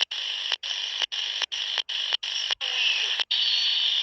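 Static hiss from a Retevis RA79 (Quansheng UV-K5) walkie-talkie tuned to the 27 MHz CB band in USB with the squelch open, cut by brief dropouts about twice a second. Faint, distorted single-sideband voice warbles under the hiss in the second half.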